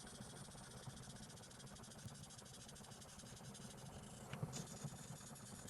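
Faint, steady scratching of coloring strokes on paper, with a soft tap about four and a half seconds in.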